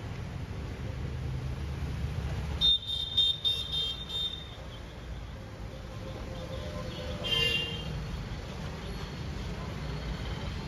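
Street traffic running steadily, with a quick string of short vehicle horn toots about three seconds in and another horn honk a little past halfway.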